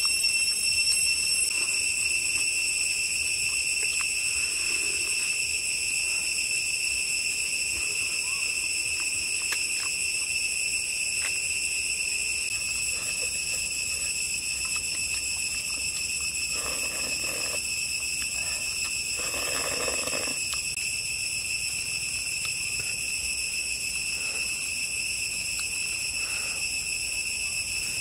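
Forest insects, such as crickets or cicadas, trilling as one steady, high-pitched, unbroken drone. A few soft, brief noises come about two-thirds of the way through.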